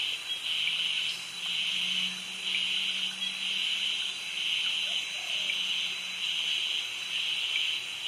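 Tropical jungle cicadas calling: a buzzing song that pulses about once a second, over a thin, steady high tone.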